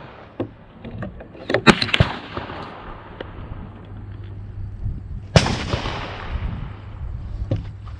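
Scattered gunshots on an outdoor firing range: a quick cluster of sharp cracks about two seconds in, then a louder single shot a few seconds later, each trailing a short echo.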